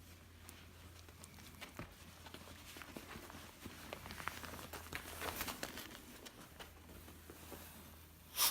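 Faint crinkling and rustling with scattered small clicks, and one brief, louder rustle near the end.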